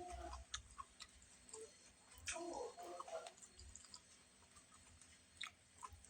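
Quiet eating sounds: scattered light clicks of cutlery against a plate, with soft chewing.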